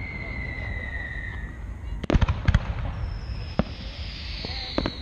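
Distant aerial fireworks shells bursting: a cluster of sharp bangs about two seconds in, a single bang a second later and two more near the end, over a steady low rumble.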